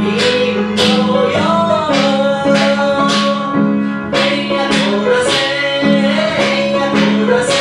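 A man singing to piano accompaniment, with tap shoes striking the floor about twice a second in a seated chair tap dance.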